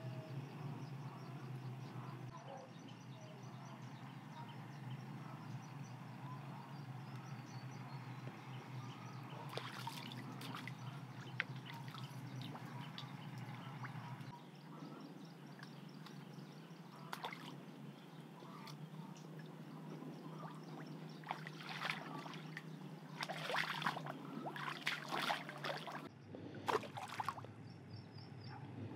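Shallow muddy water sloshing and trickling around a person wading in it, with a run of short splashes in the second half.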